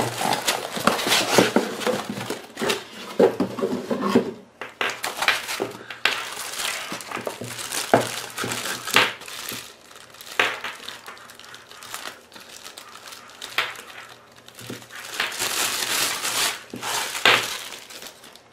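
Cardboard box and plastic packaging crinkling and rustling as a security camera is unpacked from its bag and foam inserts, with irregular crinkles and sharp clicks.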